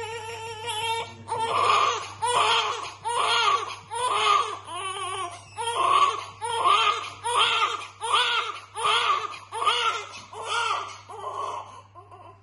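Infant crying in a steady string of short, rising-and-falling wails, about one and a half a second, growing weaker near the end.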